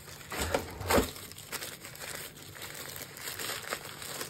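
Paper wrapping crinkling and rustling as a microphone is pulled out of it by hand, with a knock about a second in.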